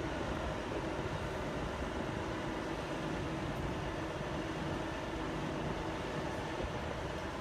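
Steady, distant jet-engine noise from a Boeing 747 Dreamlifter's four turbofan engines running on the runway ahead of its takeoff roll, with a faint steady hum in it.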